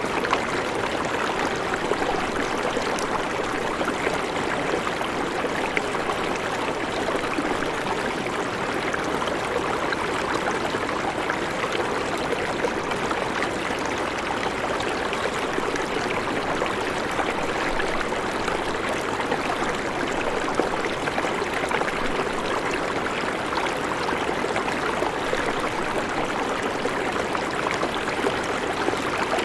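River water flowing past the bank: a steady, even rush that does not change.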